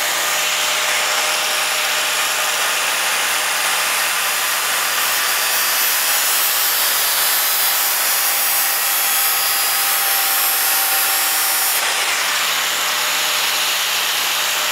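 Handheld angle grinder running steadily, its disc grinding a fuller into a steel sword blade: a loud, even motor whine under a harsh hiss of metal being ground, which grows hissier from about six seconds in until about twelve.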